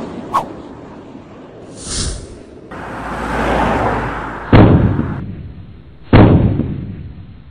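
Cartoon-style sound effects: a brief sharp ping, a short high hiss, a swelling whoosh, then two loud booming impacts about a second and a half apart, each dying away.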